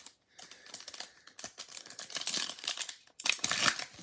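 Crinkling and rustling of baseball trading cards and packaging being handled, a dense run of small clicks and scrapes that grows louder near the end.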